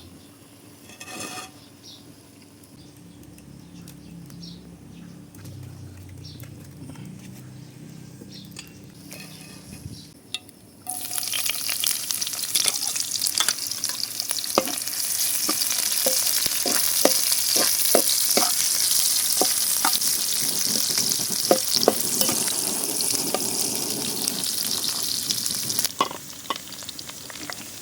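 Grasshoppers with chilli and bamboo shoot frying in a pan, sizzling loudly while being stirred, with many small scrapes and taps of the spoon against the pan. The sizzle starts abruptly about eleven seconds in, after a quiet stretch with a low hum, and drops back near the end.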